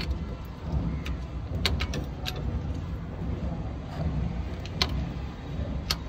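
A few sharp metallic clicks as a socket wrench is worked on the bolts of a Piaggio Ape's clutch assembly, over a steady low rumble.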